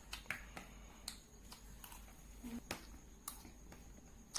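Eating noises from someone wolfing down fried rice: about a dozen faint, irregular light clicks and taps.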